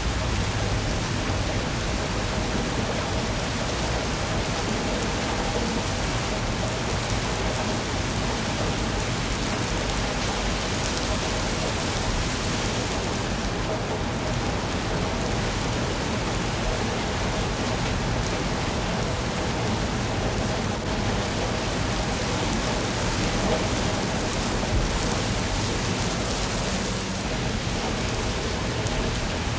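Steady rain falling, an even unbroken hiss of drops.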